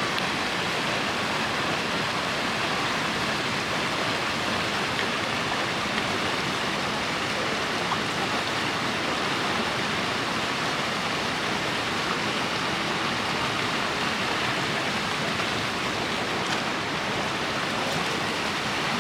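Steady rush of a mountain river's white-water cascade pouring into a deep pool.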